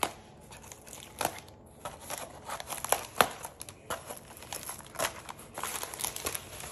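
Paper and packaging rustling and crinkling as a paint-by-numbers kit is handled and unpacked, in uneven runs with a couple of sharper crackles about three seconds in.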